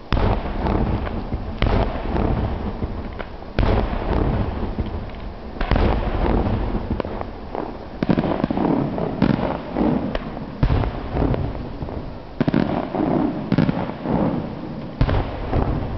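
Aerial fireworks display: a string of loud bangs about every one and a half to two seconds, each trailing off in a rumble.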